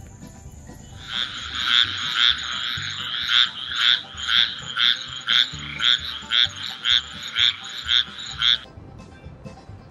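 A frog calling: a steady trill that swells about twice a second, starting about a second in and stopping abruptly near the end.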